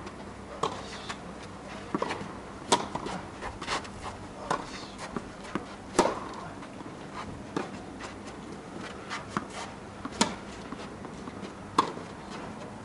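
Tennis rally: a ball struck back and forth by rackets, with sharp pops of the strings every couple of seconds and softer ball bounces between them.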